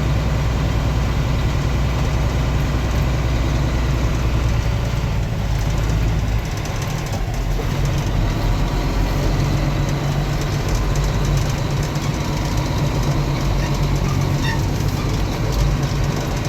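Peterbilt semi truck's diesel engine running steadily, its low note shifting about six and a half seconds in.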